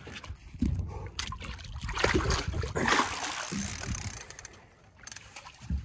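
A wels catfish splashing and thrashing at the water surface beside the boat as it is played on the rod, the splashing loudest a couple of seconds in. A dull thump comes near the end.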